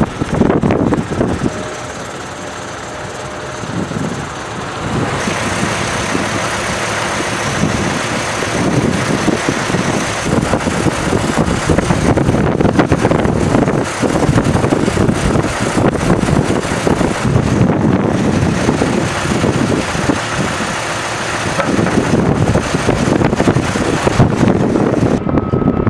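Diesel engines of heavy trucks idling, a steady mechanical rumble under dense noise, with a hissier layer joining about five seconds in.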